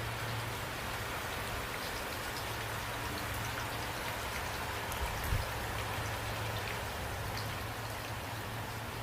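Steady rain falling, with individual drops ticking sharply over an even hiss and a steady low hum underneath. One brief low thump comes about five seconds in.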